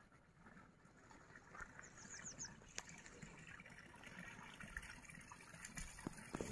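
Near silence: faint open-air ambience, with a quick run of five short, high chirps about two seconds in.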